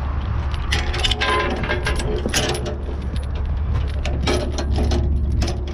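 Steel transport chain and a ratchet chain binder clinking and clanking as the chain is tightened down, in irregular metallic knocks with a short ring.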